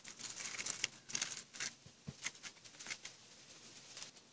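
Faint, irregular scratchy rustling and crackling as a small plastic toy figure is handled and moved over gravelly dirt.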